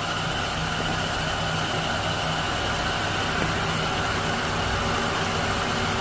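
Steady hum and hiss of a running machine, unchanging throughout.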